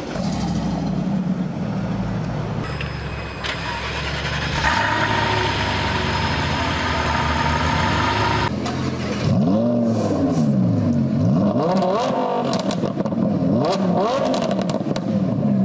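High-performance car engines running at idle, with abrupt cuts between cars. In the second half, an engine is blipped several times, its pitch rising and falling with each rev.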